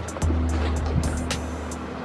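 Background music with a deep, steady bass and sharp high percussion ticks. The bass drops out briefly at the very start and again near the end.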